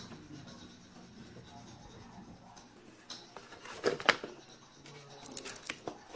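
Hard plastic clicks and scrapes from a suction-cup car phone mount being handled and its pivoting arm adjusted. A few separate clicks, the loudest pair about four seconds in and more near the end.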